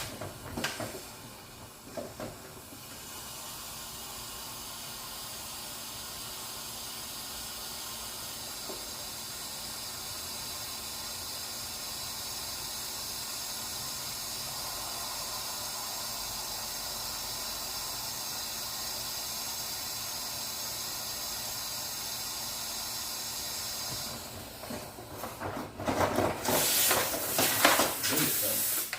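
A steady, even hiss starts about three seconds in and runs for some twenty seconds before stopping, with a faint steady hum under it. Near the end come loud irregular knocks and clattering.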